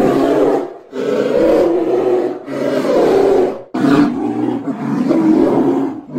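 A big cat roaring loudly: about four long, deep roars in quick succession, each a second or two long, with brief gaps between them.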